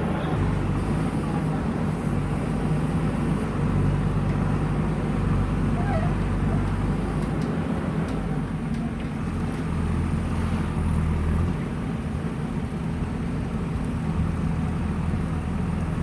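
Diesel engine of a JCB 3DX backhoe loader running steadily as the machine works, its engine note shifting a few times.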